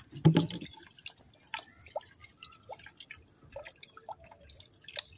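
Bath water dripping and splashing onto a concrete floor as a Labrador puppy is doused and rubbed down: irregular drips and small splashes, with one louder thump just after the start.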